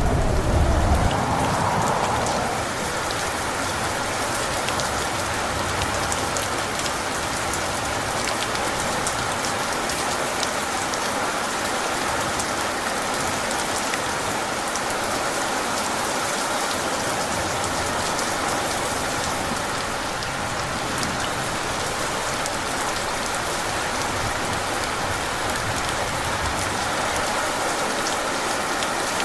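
Steady heavy rain, a dense even hiss of falling drops with fine patter throughout. The tail of a thunder rumble fades out in the first couple of seconds.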